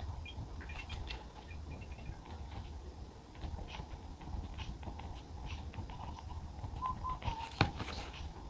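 Soft clicks and scratches of a pen writing on a journal page over a steady low hum, with a few short bird-like chirps and one sharper tap near the end.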